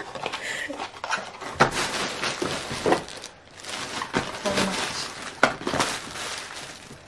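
Plastic bags and wrapping crinkling and rustling as items are handled and dug out of a packed suitcase, with many small sharp crackles.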